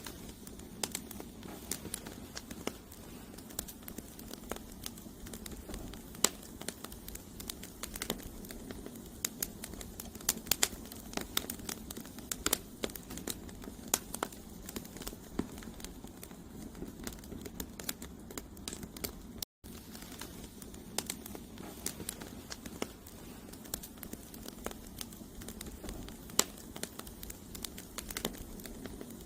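Wood campfire burning: logs crackling and popping in frequent sharp snaps over a steady low rustle of the flames. The sound cuts out for a split second about two-thirds of the way through.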